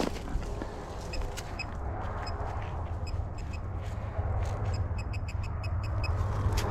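Footsteps of someone walking outdoors, with a low rumble of wind on the microphone. Short high-pitched beeps come a few times early on and then as a quick run about five seconds in.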